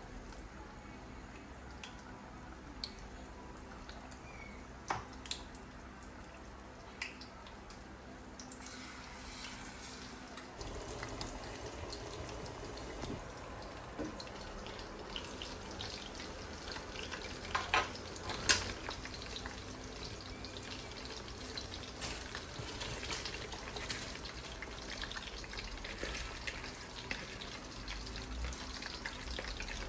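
Kitchen work sounds: a few light clicks, then a steady hiss with small crackles that starts about a third of the way in, with a couple of sharper clinks just past the middle.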